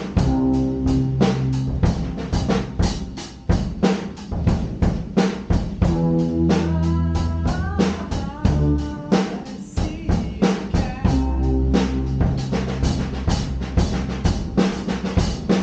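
Drum kit played in a steady groove of about four strokes a second, with keyboard chords held under it and a few sliding notes near the middle.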